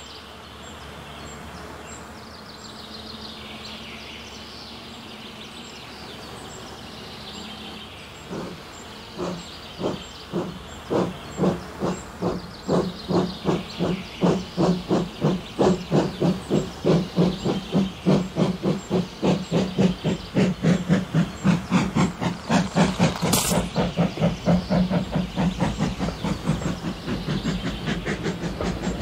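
Steam locomotive starting off: steam hissing at first, then exhaust chuffs that begin slow and quicken to about three a second as it gathers speed, with a short sharp burst about three-quarters of the way through.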